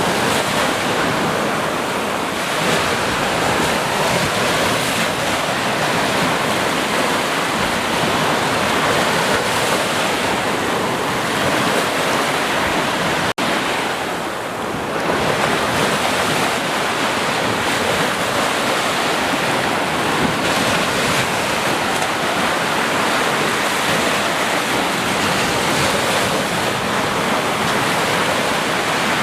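Sea surf breaking and washing continuously, a steady rushing noise with some wind in it. The sound drops out for an instant a little before halfway.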